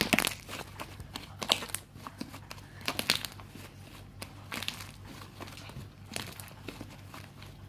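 White fluffy slime made of glue, shaving foam and borax, squeezed and worked by hand, giving clusters of small crackling pops about every second and a half.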